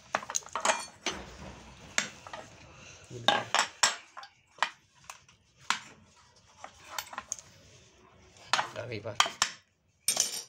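A steel tool prying and scraping the old oil seal out of the bearing housing of a washing machine's metal drive hub. Sharp metal clicks and scrapes come at irregular intervals, in bunches.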